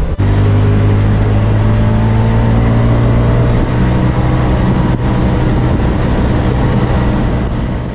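Motor vehicle engine running steadily as it drives, a low even hum with a brief break about a quarter second in.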